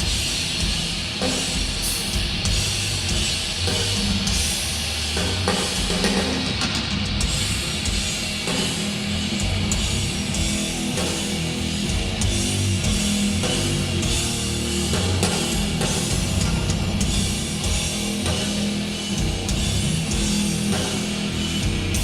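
A doom metal band playing live, with electric guitars and a drum kit.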